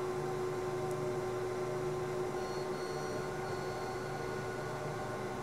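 Steady electrical hum of background equipment, holding a few fixed tones at an even level with no other sound.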